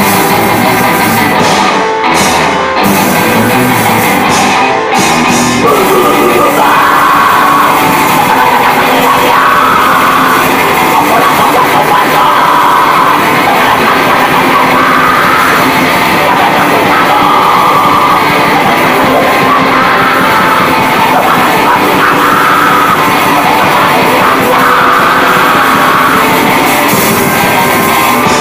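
Heavy metal song, loud and dense throughout, with harsh shouted vocals coming in about six seconds in.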